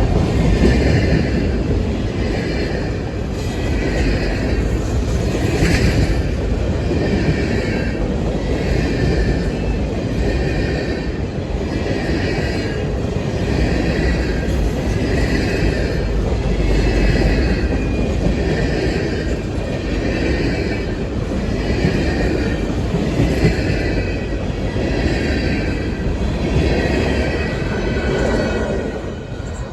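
Train rolling past close by: a continuous heavy rumble, with a high screech from the wheels that comes and goes about once a second. The sound drops away shortly before the end.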